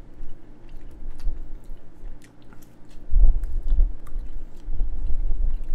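A man chewing a bite of glazed chicken wing close to the microphone, with small wet mouth clicks. The chewing grows louder about three seconds in.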